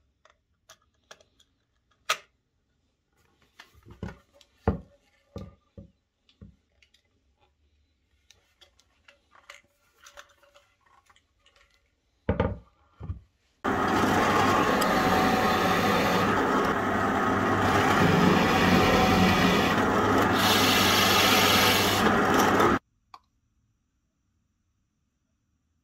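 Light knocks and scrapes as a wooden clock disc is handled and rubbed by hand. Just past halfway comes a loud, steady, scratchy rubbing of abrasive on wood, about nine seconds long, which cuts off suddenly.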